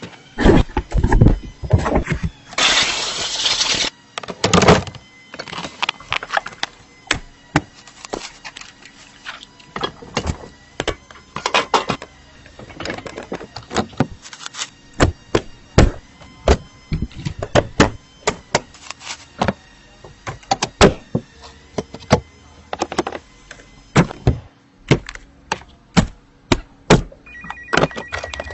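A run of sharp clicks and knocks at uneven spacing, like hard parts being handled and fitted by hand, with a brief hiss about three seconds in.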